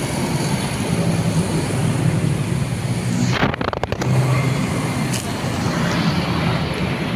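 Steady low hum of a motor vehicle engine running, with a brief scuffing rustle about three and a half seconds in.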